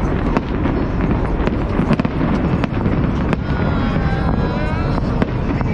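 Aerial fireworks shells bursting, a dense run of sharp bangs and crackling over a continuous low rumble.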